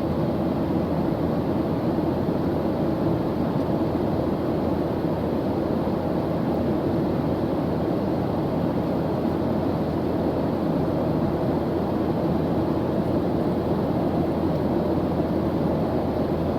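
Airplane engine drone, a steady, unchanging rumbling hiss strongest in the low-middle range.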